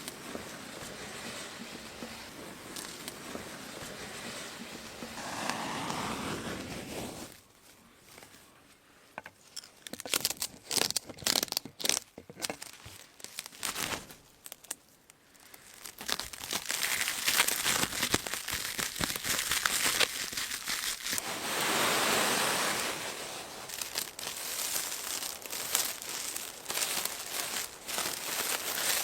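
Rustling and crinkling of material being handled, with many scattered sharp crackles; it drops off after about seven seconds to a few isolated clicks, then comes back louder about halfway through.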